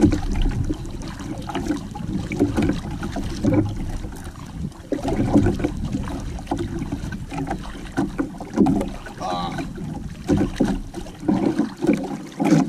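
Sea water lapping and slapping against the hull and outrigger floats of a small outrigger canoe, in uneven low splashes and knocks.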